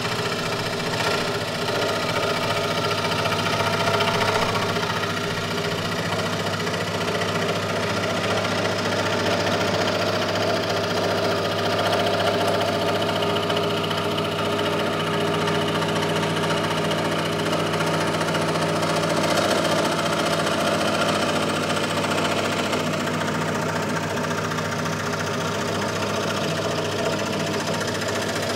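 Benchtop scroll saw running steadily, its thin blade moving up and down as it cuts a curve through thick plywood.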